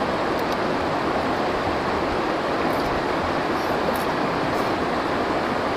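Steady rush of a fast-flowing rocky stream, an even noise that does not change.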